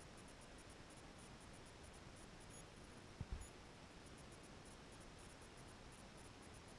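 Near silence: room tone with a faint hiss, broken by two short, low thumps a little over three seconds in.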